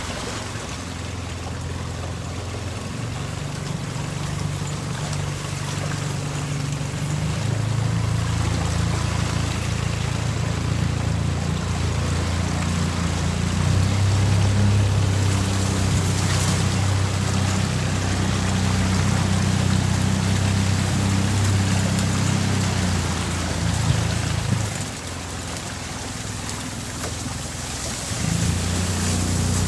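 A 25 hp outboard motor pushes a jon boat along at a steady run, its engine speed building gradually over the first dozen seconds. Near the end it throttles back for about three seconds, then picks up again.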